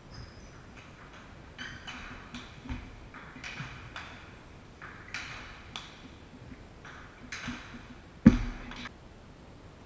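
Table tennis rally: the ball clicking sharply off rackets and table in a quick, uneven run of hits. About eight seconds in there is one loud thud close to the microphone.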